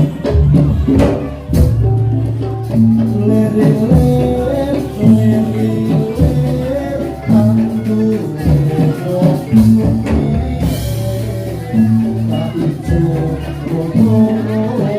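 Javanese gamelan music of the kind that accompanies a jathilan dance: sustained metallophone-like notes in a stepping melody over held low tones, with sharp drum strokes, heaviest in the first second and a half.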